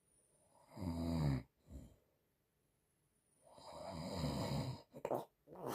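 Elderly woman snoring in her sleep: two low, pitched snores about three seconds apart, each followed by a short breath, with a third starting near the end.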